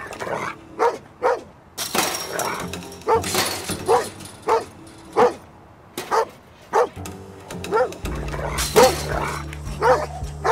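Dog barking repeatedly behind the wire of a kennel cage, a bark about every half second to second. Dramatic background music runs underneath, with a low drone coming in about eight seconds in.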